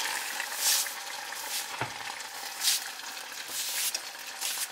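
Hot garlic-and-ketchup sauce sizzling and spattering in a stainless steel pot, with a few brief swishes of a cloth wiping splatter off the glass-top stove and a light knock about two seconds in.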